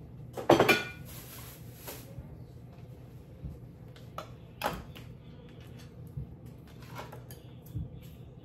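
Kitchen dishes clattering: one loud ringing clink of a dish about half a second in, a brief hiss just after, then a few lighter knocks and clicks.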